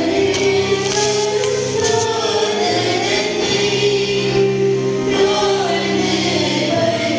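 Choir singing a slow hymn, with long held notes.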